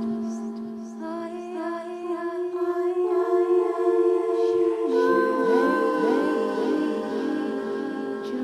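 Layered wordless female voices humming and singing long held tones in an ethereal ambient drone, with new vocal layers entering about a second in and sliding, gliding pitches weaving in from about halfway through.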